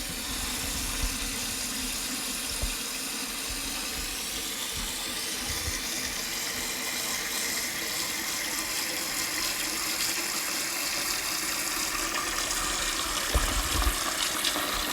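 Toilet tank refilling after a flush: water hissing steadily through a newly installed Fluidmaster fill valve, with a couple of faint low knocks near the end.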